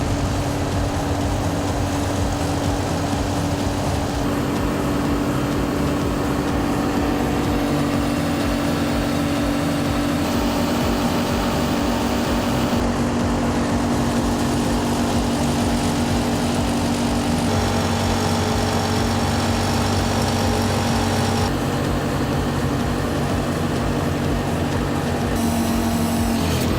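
Engine of a Pauselli 1200 pile driver machine running steadily. The sound changes abruptly several times.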